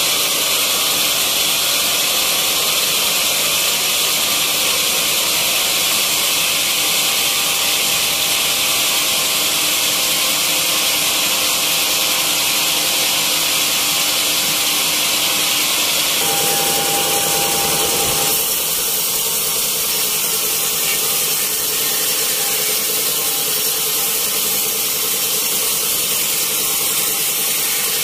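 Band sawmill running and sawing through a freshly felled, wet teak log: a loud, steady, mostly high-pitched rushing saw noise. The sound shifts about sixteen seconds in, with a brief tone, then carries on steadily.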